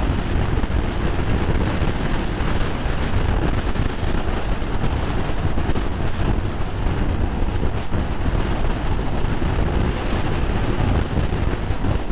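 Steady wind rushing and buffeting over the microphone of a Honda Transalp motorcycle at riding speed, with the bike's engine and road noise blended in underneath.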